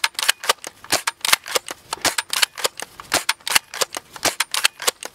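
A fast, irregular run of sharp, shot-like cracks, about five a second.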